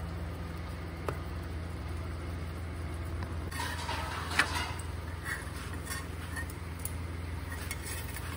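Metal spatula scraping and tapping on an iron tawa as a paratha is turned, with a sharp tap about four and a half seconds in and a few lighter ticks afterwards, over a steady low hum.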